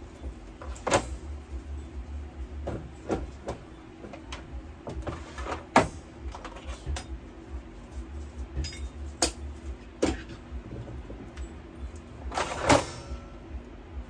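Clinks, taps and knocks of metal espresso machine parts being wiped and handled, scattered unevenly, the loudest knocks about six seconds in and near the end, over a steady low hum.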